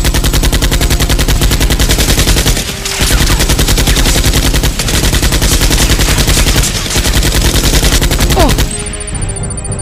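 Rapid automatic machine-gun fire, a dubbed gunfire sound effect: four long strings of fast shots with brief gaps, stopping shortly before the end.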